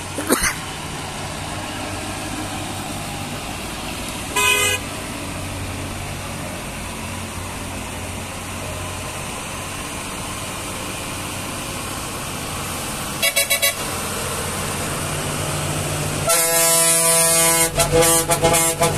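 Heavy lorry engines running on the road with a steady low rumble, broken by vehicle horns: one short toot about four seconds in, three quick toots a little past halfway, and a long run of loud, stuttering horn blasts near the end.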